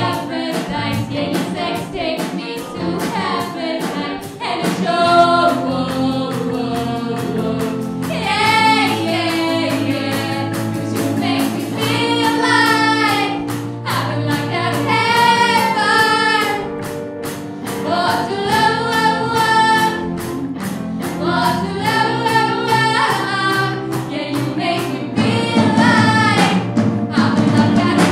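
Live band song: two singers sing together over keyboards, electric guitar, bass guitar and drums, with a steady beat throughout.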